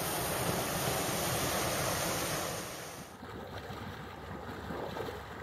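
Wind buffeting the microphone over rushing water, as from a moving boat. It cuts off sharply about three seconds in to quieter, rougher water lapping and splashing.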